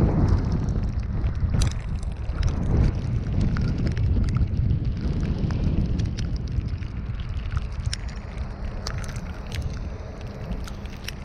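Car driving on a snowy city street: a steady low rumble of road and wind noise, growing gradually quieter, with scattered sharp little ticks throughout.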